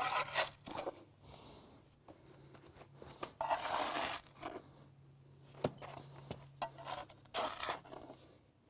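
Trowel scraping excess wet mortar from around the base of a cast concrete column: a string of short, irregular scrapes, the longest about three and a half seconds in.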